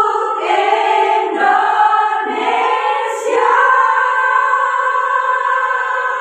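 A women's choir singing together, shifting through several notes and then holding one long chord over the second half.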